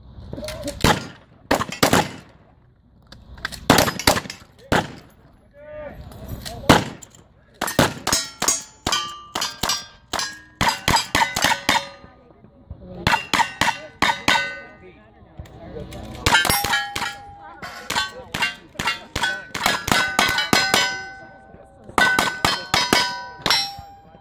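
Gunshots at steel targets, each hit followed by the ringing clang of the steel plate. A few widely spaced shotgun shots come first, then a fast string of single-action revolver shots with the plates ringing one after another.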